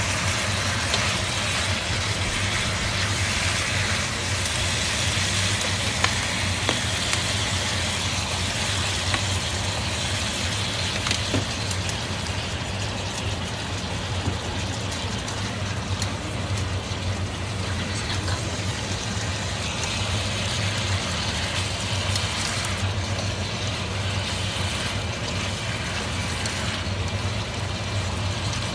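Sliced wild boar meat and asparagus sizzling in a hot wok as they are stir-fried, with chopsticks now and then ticking against the pan. A steady low hum runs underneath.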